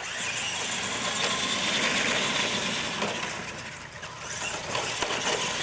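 Two R/C monster trucks racing on a dirt track: a dense, steady noise of their motors and tires on dirt, starting right at the launch, easing off about four seconds in as the trucks move away, then building again near the end.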